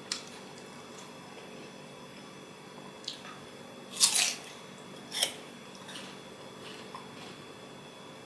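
Crisp bite into a chunk of raw pear, about four seconds in, followed by a few crunches as it is chewed; a light click comes just before, near the start.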